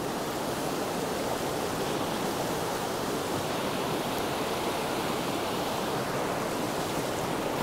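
Steady rushing of whitewater in a fast stream rapid.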